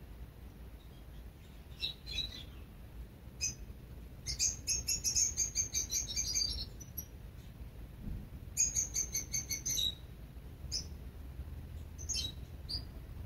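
Small songbirds calling: scattered short, high chirps, and twice a fast run of repeated chirps lasting one to two seconds, the first a little after four seconds in, the second near the middle.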